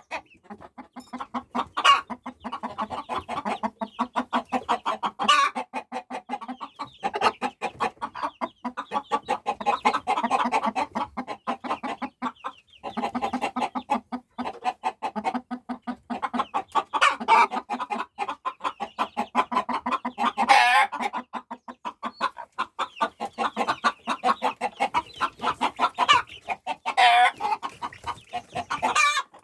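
A hen clucking rapidly and continuously, with her newly hatched chicks peeping, and several louder sweeping calls standing out now and then.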